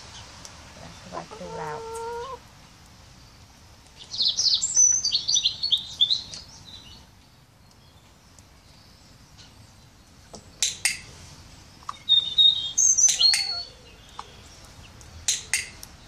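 Small birds chirping in quick high runs, about four seconds in and again about twelve seconds in, with a hen giving a short low call about a second in. Sharp clicks of a training clicker sound about ten and a half and fifteen seconds in, each marking the right behaviour before a mealworm treat.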